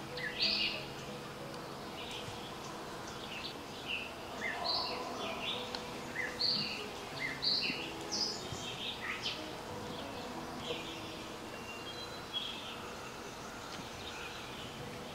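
Birds chirping in short, scattered calls over steady outdoor background noise, the calls growing sparser near the end.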